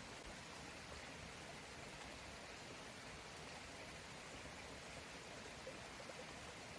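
Faint, steady forest ambience: an even rushing hiss like running water or rain, with no distinct events.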